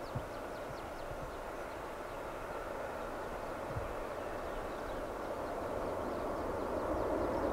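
Jet airliner's engines heard from beside the runway as it rolls along, a steady rushing rumble that grows gradually louder. Two faint low thumps come near the start and about four seconds in.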